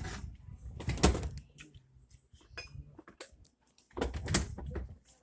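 Clattering knocks, clicks and rattles of parts being handled, with the loudest knocks about a second in and again around four seconds in.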